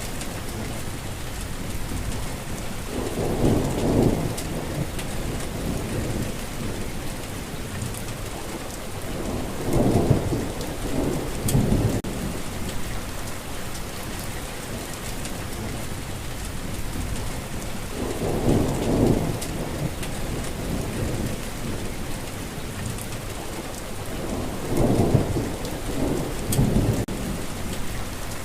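Steady rain falling, with low rumbles of thunder rolling in four times, roughly every seven seconds.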